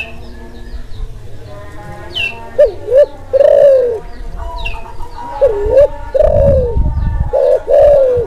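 Spotted dove (Kelantan tekukur) cooing in breeding condition. It gives repeated phrases of two short notes followed by a longer falling coo, the pattern starting again near the end. Higher chirps of other small birds come in between.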